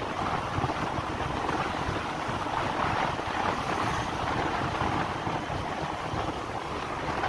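Motorcycle riding at speed: steady wind rush on the helmet-mounted microphone with engine and road noise beneath.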